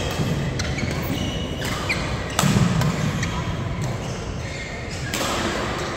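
Badminton doubles rally: sharp racket strikes on the shuttlecock, several over the few seconds, with short high squeaks of shoes on the court floor.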